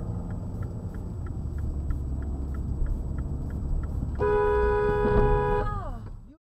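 Car driving with a steady road and engine rumble inside the cabin and a faint regular ticking. About four seconds in a two-tone car horn blares for about a second and a half, its pitch sagging downward just before the sound cuts off.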